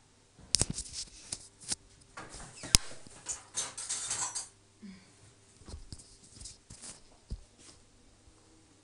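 Scattered sharp clicks and taps with short bursts of rustling, the loudest clicks about half a second and three seconds in, then fainter ticks: small handling noises.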